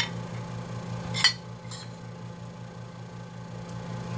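A metal spoon clinking against a plate as home fries are spooned onto it: a sharp clink at the start and a louder one about a second in, over a steady low hum.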